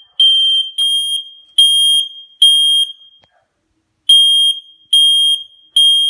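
Smoke alarm sounding on test: loud, shrill beeps of one high pitch about a second apart. Four beeps come, then a break of over a second, then three more.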